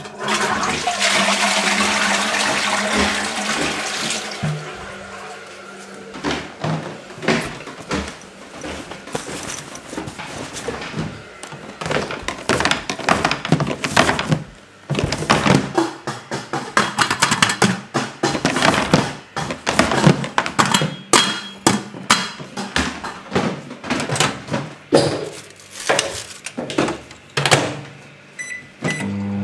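Household sound effects: a rush of running water at the start that fades over about four seconds, then a long, uneven run of quick clicks and knocks, over a faint steady low hum.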